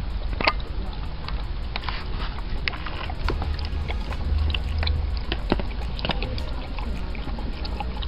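A dog lapping water from a plastic bowl through a mesh muzzle: an irregular run of wet laps, splashes and small clicks.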